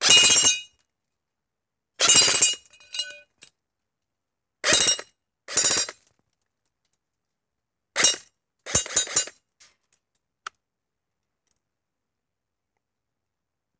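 ICS MP5A4 electric airsoft gun firing about six short bursts, with BBs pinging off a metal popper target. Its gearbox cycles in rapid clicks, with a brief metallic ring after the second burst.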